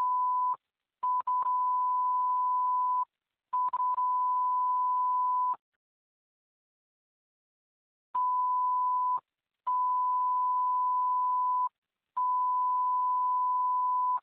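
Fire dispatch alert tones on a radio channel, heard through a pager: one steady, unchanging beep, sounded in two groups of three, each beep about one to two seconds long, with a longer gap between the groups. The tones alert the units before the dispatcher announces the call.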